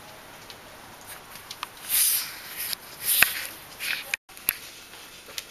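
Bichon Frisé dogs moving about on a towel and wooden floor: short scuffling and sniffing noises with a few small clicks, strongest about two and three seconds in. The sound drops out briefly just after four seconds.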